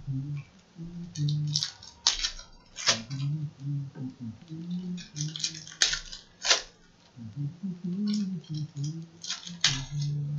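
Foil trading-card pack wrappers crinkling and tearing as packs are opened by hand, a dozen or so short sharp rustles and snaps, with cards being handled. A low murmur runs underneath.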